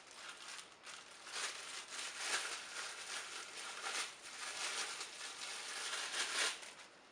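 Packaging rustling and crinkling in uneven bursts as vacuum-cleaner accessories are handled, stopping about six and a half seconds in.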